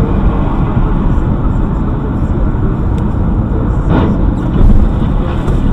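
Steady road and engine noise of a moving car, picked up by a dashcam microphone inside the cabin, with a brief knock about four seconds in.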